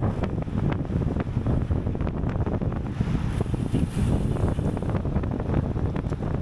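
Wind rushing over the microphone of a racing cyclist's camera at speed: a steady low rumble with many short light ticks scattered through it.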